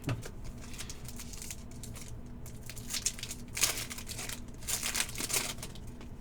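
Plastic trading-card pack wrappers crinkling and tearing as football card packs are opened and handled, in a few short bursts.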